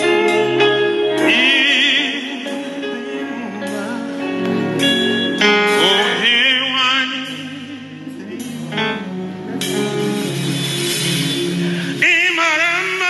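Live gospel worship music: a man sings into a microphone in a wavering, ornamented voice over sustained instrumental chords.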